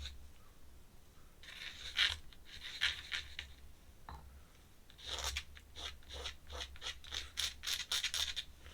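Pen scratching across paper in quick strokes, in two bursts with a pause of about a second and a half between them.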